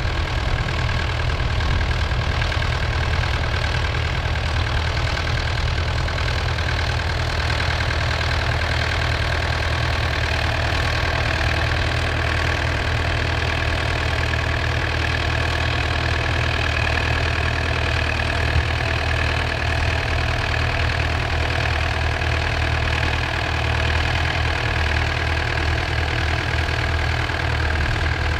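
Nuffield 460 tractor engine running steadily under load while pulling a plough, a deep, even engine note with no change in pace.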